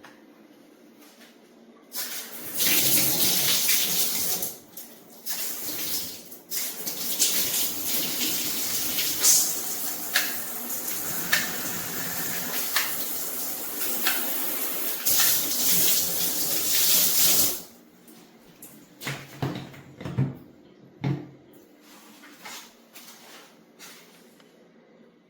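Water spraying hard from a filtered shower head, starting about two seconds in and cut off suddenly about two-thirds of the way through. After that come a few light knocks.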